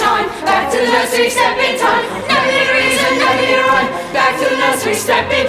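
A large stage chorus singing a lively show tune with musical accompaniment.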